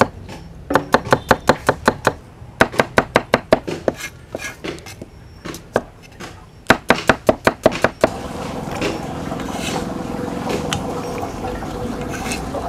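Cleaver chopping shallots on a wooden chopping block: quick runs of sharp knocks, about six a second, with short pauses between runs. About eight seconds in the chopping stops and a steady background noise with a faint hum remains.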